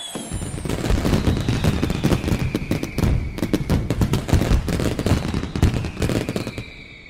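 Fireworks going off in a dense, rapid run of crackling bangs and pops, with a thin whistle that falls slowly in pitch underneath; the crackle fades out near the end.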